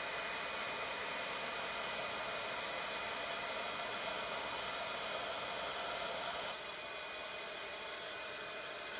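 Embossing heat tool blowing hot air in a steady hiss, melting white embossing powder on stamped card stock. It gets a little quieter about six and a half seconds in.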